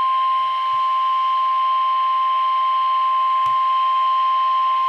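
Weather-alert warning tone: a single steady, loud beep near 1 kHz, the 1050 Hz alarm tone used by NOAA Weather Radio to announce a warning, here a severe thunderstorm warning. A faint click comes about three and a half seconds in.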